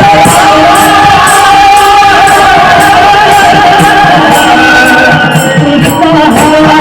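Marathi devotional bhajan: a man sings with instrumental accompaniment, over a steady bright percussion beat of about two strokes a second that drops out briefly near the end.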